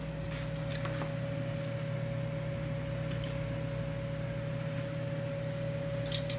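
Imitation crab sticks frying in oil in a pan on a gas stove, under a steady low kitchen hum. About six seconds in, metal tongs clack a couple of times.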